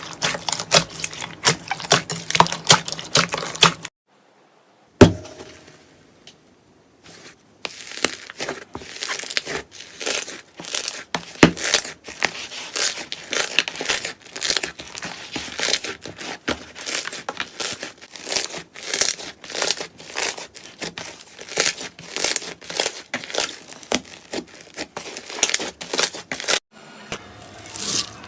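Slime being squeezed and pressed by hand: a dense run of crackling clicks and pops. The run is broken by a pause of a few seconds, with a single sharp snap early in the pause, and then goes on.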